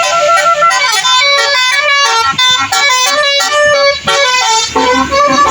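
Bus telolet horn of the basuri type playing a quick melody of short stepped notes. A low engine hum comes in near the end.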